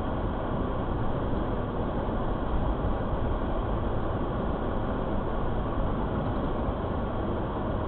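Steady rumble of a moving vehicle, road and engine noise with no change.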